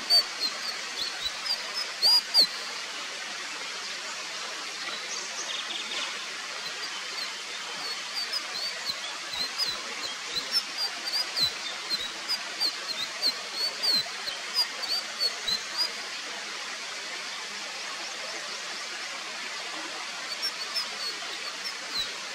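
Indigo flycatcher calling: runs of short, high chirps, with a pause of a few seconds after the middle, over a steady background hiss.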